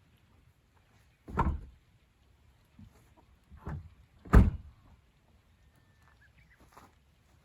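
Two heavy thuds about three seconds apart, the second the louder, with a lighter knock just before it.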